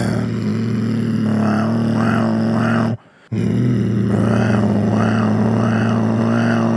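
Throat bass: a low, buzzing drone held from the throat in two long stretches, broken once about three seconds in for a breath. The tone wavers in a regular rhythm.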